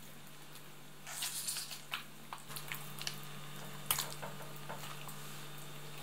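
Faint wet squelching and small clicks as hands pull the skin off a raw pike, over a steady low hum.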